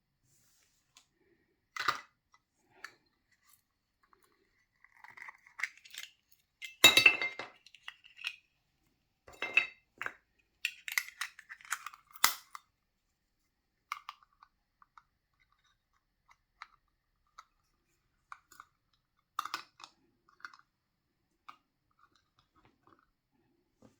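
Hands handling a small surprise box and the tiny plastic toys and wrapping inside: scattered taps, clicks and light clinks with bits of crinkling. The sounds come thickest and loudest from about a fifth of the way in to the middle, the loudest a short crinkly clatter near seven seconds, then thin out to occasional single taps.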